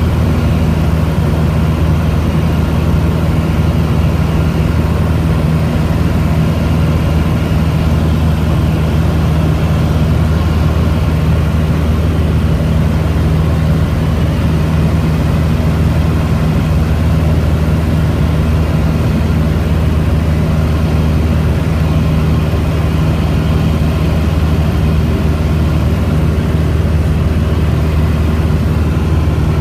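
Light aircraft's engine and propeller droning steadily at constant power in flight, heard from inside the cabin.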